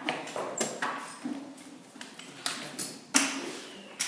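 A series of sharp knocks and clicks at irregular intervals, the loudest about three seconds in.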